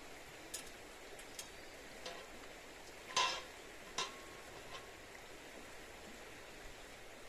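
A utensil clicking and clinking against a cooking pan about six times, loudest just past three seconds and again at four seconds with a short metallic ring, over a steady hiss.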